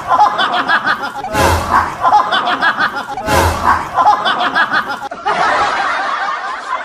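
People laughing and chuckling in short bursts, with a loud rushing noise breaking in twice, about two seconds apart.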